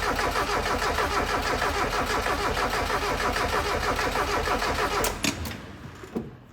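1991 Mazda Miata's 1.6-litre four-cylinder engine cranking on the starter without firing, the cam angle sensor unplugged, with even pulses as each piston labours up on its compression stroke. The pulses show the engine is making compression, though one cylinder spins through a little faster, which the owner takes for one cylinder a little low. The cranking stops about five seconds in, followed by a couple of clicks.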